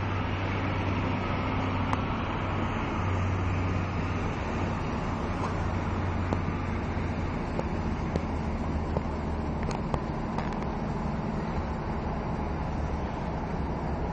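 A ship's engine running with a steady low hum, with a few faint clicks over it.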